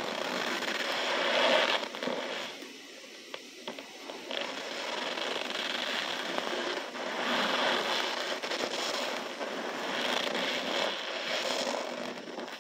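Hands squeezing and crushing loose cornstarch in a plastic tub: a dense crackling crunch that comes in swells, loudest in the first two seconds, with a short lull around two to four seconds in.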